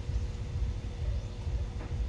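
A running car engine: a low, uneven rumble with a faint steady whine above it.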